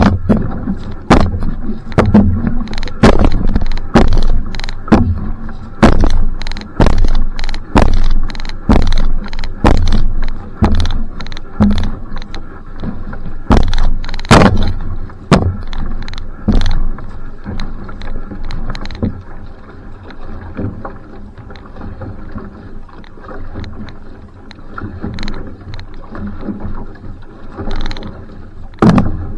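Va'a outrigger canoe being paddled: a sharp splash-knock of the paddle about once a second over running water. The strokes ease to softer and sparser for the second half.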